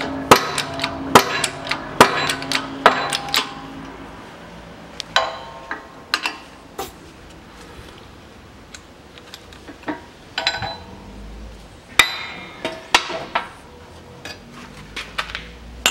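Sharp metallic clanks and clicks with a short ringing tail from a hydraulic shop press and its steel driver plate. A new front wheel bearing is being pressed into the steering knuckle, with the old bearing used as a driver. The clanks come thick and fast for the first three seconds or so, then thin out to scattered single clicks as the driver is lifted off the hub.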